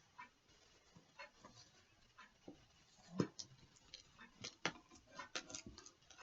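Faint handling noises of a cardboard shipping box: scattered small clicks and taps, getting busier in the second half, with one louder knock about three seconds in.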